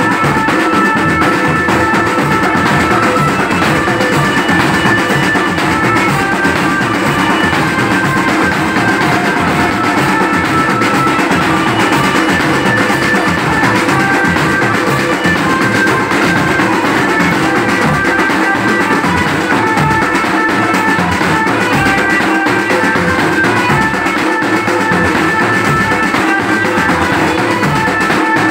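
Marching-band snare and marching drums beating a steady rhythm together, with a melody running above the drums.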